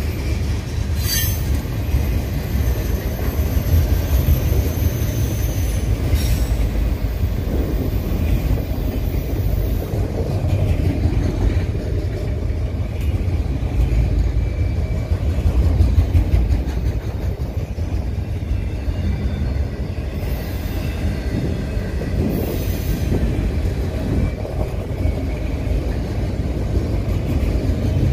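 Freight train of boxcars and autorack cars rolling past, a steady low rumble of steel wheels on rail. Thin high wheel squeal runs through the first ten seconds, and short high screeches come a few more times later.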